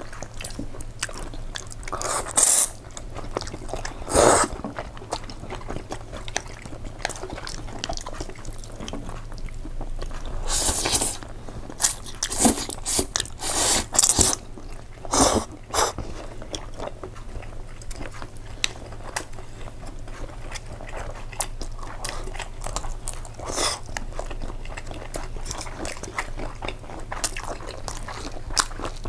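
Close-miked eating of tomato spaghetti: wet chewing with many small mouth clicks, broken by several short, loud slurps of noodles.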